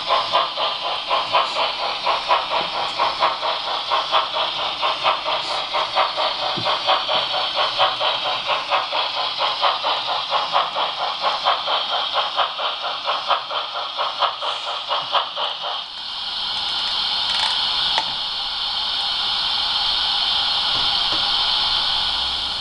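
Model steam locomotive's sound module playing steady rhythmic chuffing, about three chuffs a second, as the engine runs. About sixteen seconds in, the chuffing stops and gives way to a steady steam hiss as the locomotive stands.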